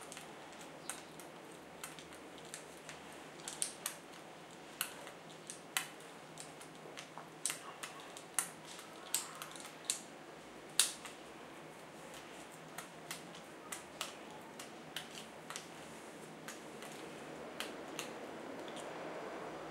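Sharp, irregular clicks and small taps, about one a second, from a hex screwdriver turning a small machine screw into a plastic 3D-printer extruder block. The screw is going into the groove at the nozzle's neck to clamp the nozzle in place. A soft rustle swells near the end.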